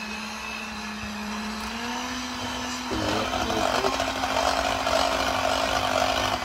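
Electric hand mixer running with only one beater, whipping mashed potatoes as it works through small chunks of potato. Its steady motor hum rises slightly in pitch about two seconds in, and the whir grows louder and busier from about three seconds.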